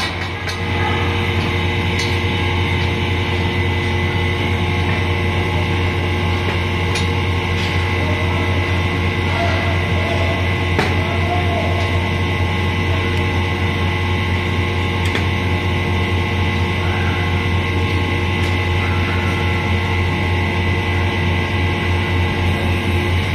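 Steady, even drone of the hydraulic power pack driving the tank-lifting jacks, with a strong low hum and a few light clicks.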